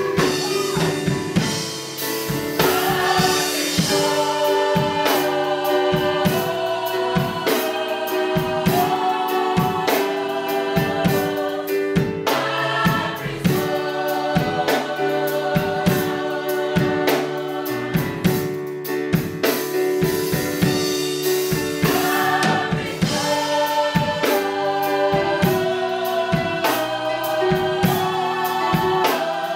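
A small church choir singing a gospel song in parts, with a drum kit keeping a steady beat.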